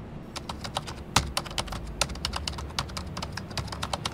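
Typing on a computer keyboard: a quick, irregular run of keystroke clicks starting about a third of a second in, over a steady low hum.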